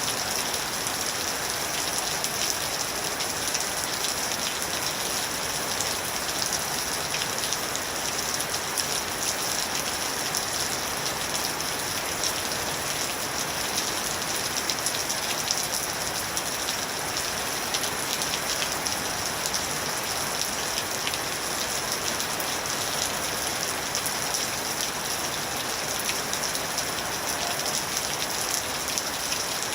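Steady rain falling: an even, unbroken hiss of drops with many fine ticks from individual drops, holding the same level throughout.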